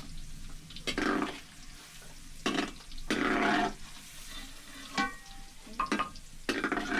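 Food frying in a pan, stirred with a utensil in about six separate scraping strokes over a low, steady sizzle.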